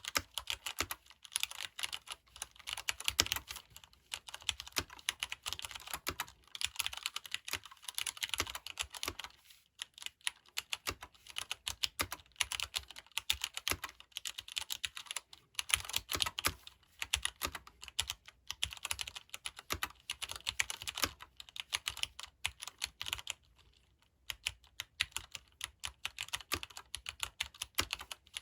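Fast, continuous typing on a Leopold FC750R PD mechanical keyboard with Cherry MX Brown switches, which are non-clicky and tactile. The keystrokes pause briefly twice.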